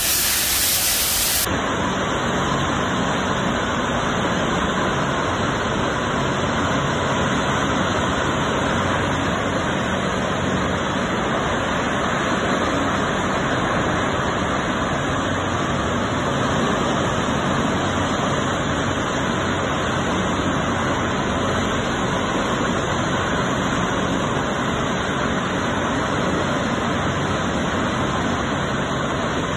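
Steady, loud rushing noise with a faint low hum beneath it.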